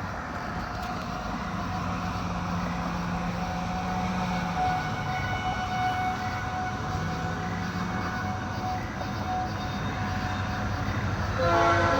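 Outdoor tornado warning sirens sounding as faint steady tones that swell and fade, over a noisy background. Near the end a louder chord of several tones sets in.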